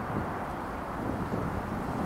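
Irish Rail 071 class diesel-electric locomotive (EMD JT22CW), its V12 two-stroke engine running as it approaches, a steady rumble.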